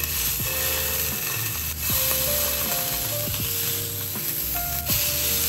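A block of beef round searing in a frying pan, sizzling steadily, with a few sharp clicks as the tongs turn it onto its side.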